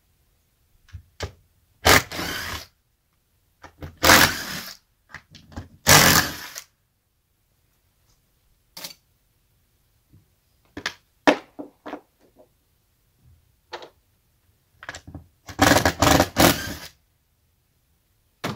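Cordless drill run in short bursts, backing out screws from the housing of a truck camper's crank lift mechanism: three bursts a couple of seconds apart, then a longer one near the end, with light clicks and knocks of tools and parts being handled between them.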